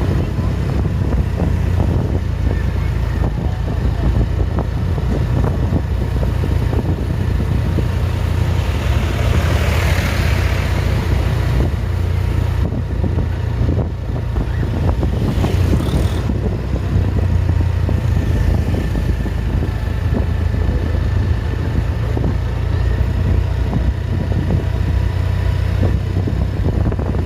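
Bus engine and road noise: a loud, steady low rumble, with a hissing swell that rises and fades about ten seconds in.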